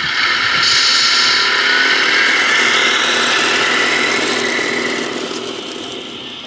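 Tamiya 1/14-scale radio-controlled semi truck driving past over rough asphalt, its motor and drivetrain running with a rising whine. It is loudest over the first few seconds and fades as the truck moves away.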